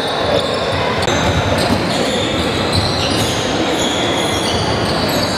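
Basketball game in a gym: a ball bouncing on the court and short high sneaker squeaks, over a steady background din.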